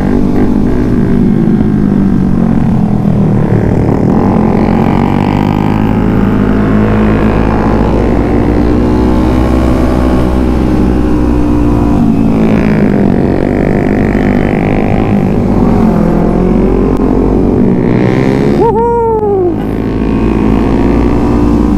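Kawasaki Z250's parallel-twin engine running under way, its revs rising and falling through the bends, with wind rush on the microphone. A little before the end a short higher whine swells and falls away.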